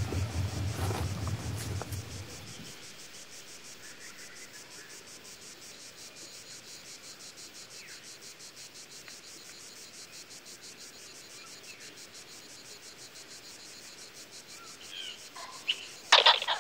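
Insects chirping in a steady, rapid, even pulse. A low hum sits under it for the first two and a half seconds, and a sudden loud sound breaks in near the end.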